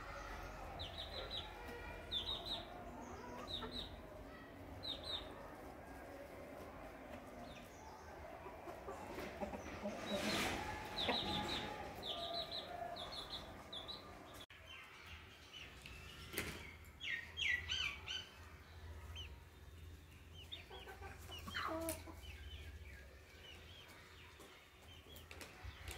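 A small flock of chickens clucking and calling as they feed, with clusters of short high chirps coming in bursts.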